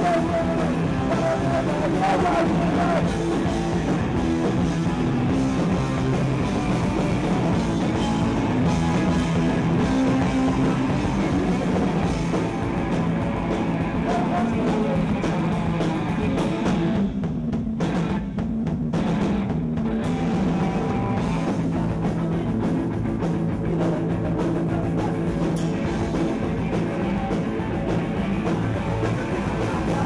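Punk rock band playing live: drum kit, electric guitar and bass with a singer shouting into the microphone. The sound briefly thins out, losing its top, a little over halfway through.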